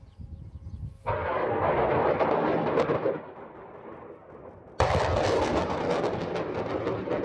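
M270 Multiple Launch Rocket System firing rockets: two launches, about a second in and near five seconds. Each is a sudden blast followed by a couple of seconds of loud rushing noise from the rocket motor.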